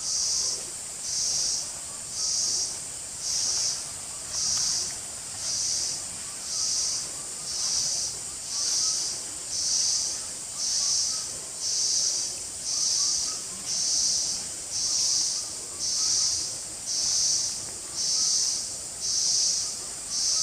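Insect chorus: a buzzing that swells and fades about once a second over a steady higher-pitched whine.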